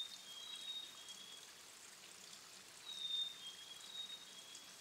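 A thin stream of water trickling and splashing steadily down a shale ledge into a shallow pool. Over it, twice, a short phrase of high, thin whistled notes alternating between two close pitches, typical of a songbird.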